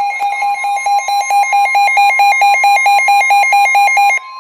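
Emergency-alert warning tones: a loud, rapid electronic beeping, about eight pulses a second, over a steady high tone. The beeping cuts off suddenly about four seconds in.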